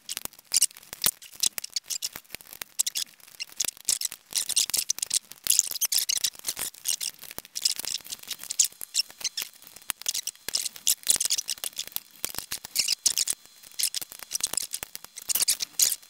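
Plastic housing of an original iMac keyboard (M2452) being pried apart at its snap tabs by hand and screwdriver: dense, irregular plastic clicking, scraping and creaking throughout, with a few sharper clicks.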